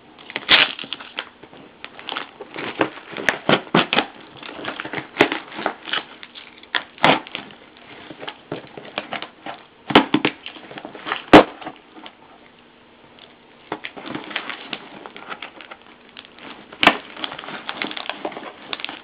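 A taped cardboard shipping box being opened by hand: packing tape tearing and cardboard and wrapping crackling and crinkling in irregular sharp snaps, with the loudest cracks about ten and eleven seconds in and a quieter pause a little later.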